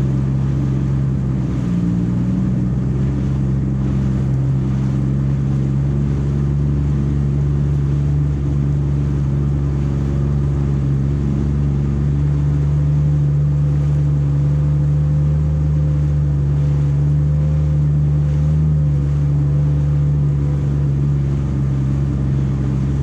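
Jet ski engine running at a steady cruising speed, a constant engine hum that barely changes pitch.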